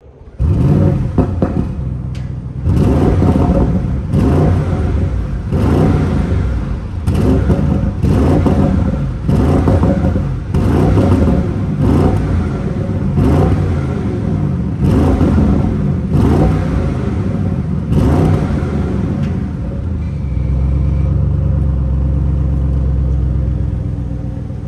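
A 2023 Audi RS6's 4.0-litre twin-turbo V8 revved over and over in short blips, about one every second and a half, each rising and falling in pitch. Near the end the revving stops and the engine settles to a steady idle.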